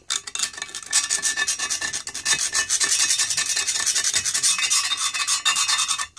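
Rapid back-and-forth hand scraping or rubbing, many even strokes a second, stopping right at the end.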